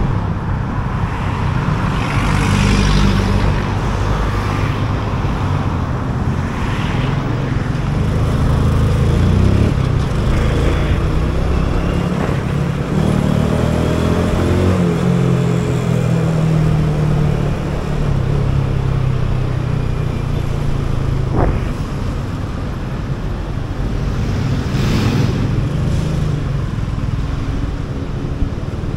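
Motor scooter engine running in city traffic, its pitch rising around the middle of the stretch as it speeds up, with surrounding cars and motorcycles going by.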